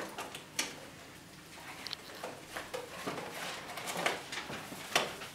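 Scattered rustling and soft knocks, with a sharp click about half a second in and another near the end.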